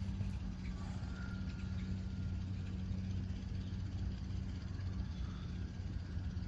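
A steady low engine hum, held at an even pitch like an engine idling.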